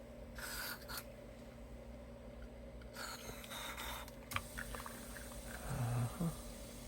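Aerosol can of DeoxIT contact cleaner sprayed in two short hissing bursts, the second longer, into the guitar's pots and electronics. A dull low knock follows near the end.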